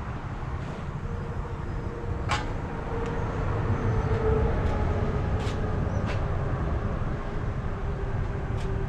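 A steady low rumble with a faint droning hum over it, and a few very short, sharp hisses.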